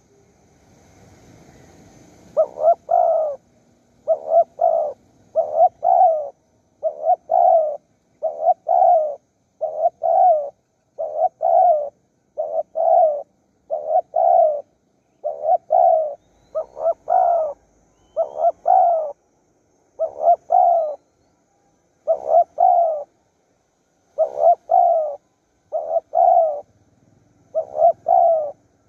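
Spotted dove cooing its song over and over, a short rolling phrase about every second and a half, starting about two seconds in.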